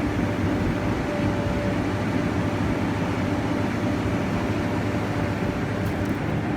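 Excavator's diesel engine running at a steady speed, with an even hum.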